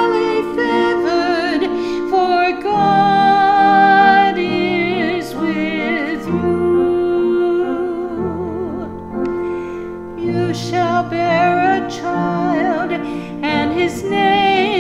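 A solo voice singing a slow, sustained melody with vibrato over instrumental accompaniment, holding long notes with few clear words.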